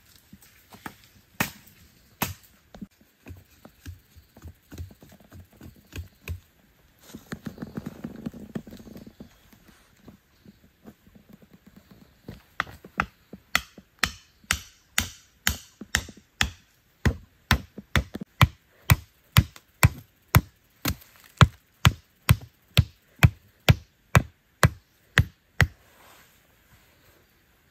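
A wooden stake being hammered into the ground, a steady run of sharp knocks at about two blows a second that starts about halfway through and stops shortly before the end. Earlier there are a few scattered knocks and a brief rustling scrape.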